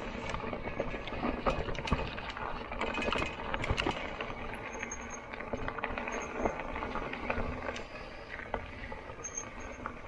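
Fat-tyre folding e-bike ridden over a bumpy dirt track: a steady rumble of tyres and wind with many small rattles and knocks from the bike over the bumps.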